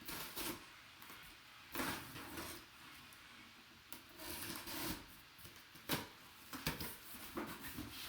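A sealed cardboard box being handled and opened: irregular scraping and rubbing of cardboard and packaging, with a few sharp clicks.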